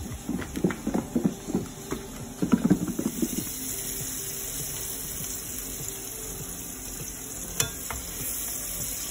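Smelts in batter knocking and rattling inside a lidded plastic tub as it is shaken for the first few seconds, then oil sizzling steadily as battered smelts fry in a cast iron skillet. A single click of metal tongs about three quarters of the way through.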